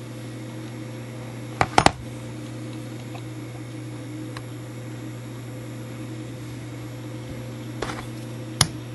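Steady low hum, with a couple of sharp metal clicks about two seconds in. Near the end comes one sharp tap: a hammer striking a punch to drive a worn pin out of a brass clock wheel.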